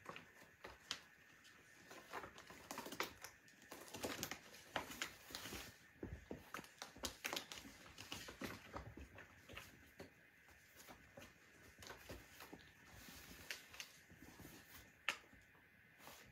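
Kittens' claws and paws scratching and tapping on a corrugated cardboard scratcher as they play. The faint, irregular clicks and scuffs are busiest in the first half, with one sharper tap near the end.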